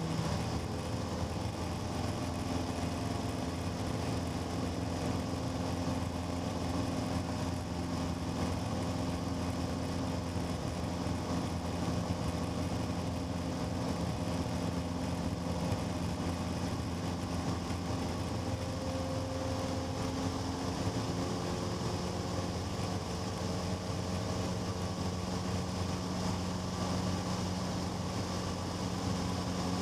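Cessna 150's four-cylinder Continental O-200 engine and propeller running at a steady speed, an even drone with no change in pitch.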